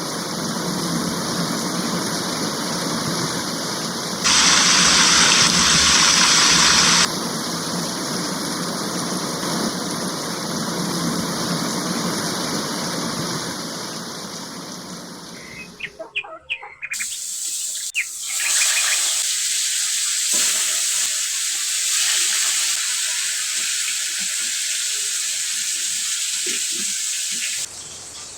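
Steady rain pouring, with a louder spell about four seconds in. Near the middle it cuts off to a few sharp knocks, then a thinner, higher hiss of rain.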